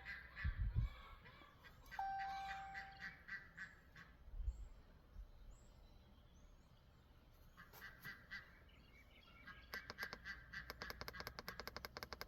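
A faint electronic beep held for about a second, a couple of soft low thumps, then a quick run of rapid clicking near the end.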